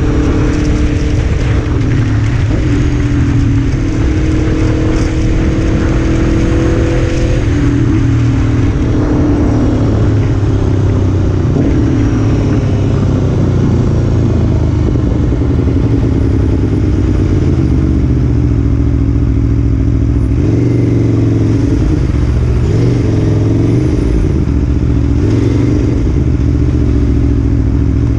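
Aprilia Tuono V4 1100's V4 engine running at low road speed in slow traffic. The note stays mostly steady, with small rises and dips in pitch as the throttle opens and closes.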